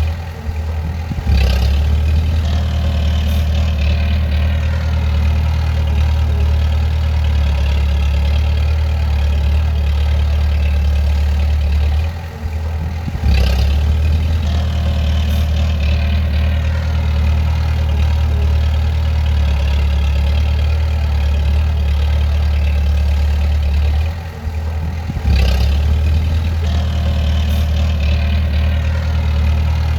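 Bulldozer's diesel engine running steadily with a deep drone. It drops off briefly three times, about twelve seconds apart, and comes back each time with a short click.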